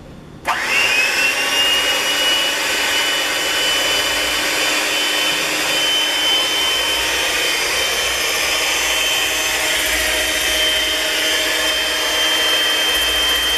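Electric hand mixer switched on about half a second in, its motor whining up to speed and then running steadily with the beaters turning in a stainless steel bowl.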